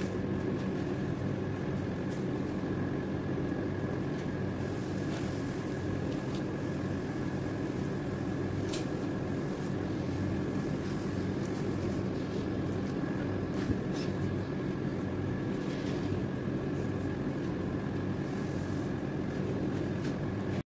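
Steady low mechanical hum with a thin high tone running through it, and a few faint clicks.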